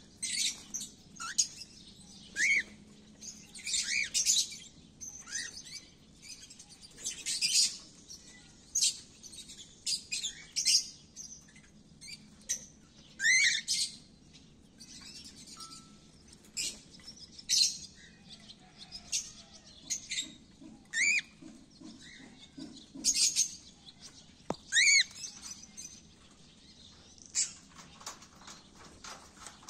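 Cockatiels chirping and calling in an irregular stream of short calls, some of them rising-and-falling whistles.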